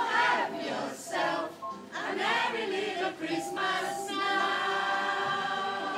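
A group of voices singing a Christmas carol together, holding a long note near the end.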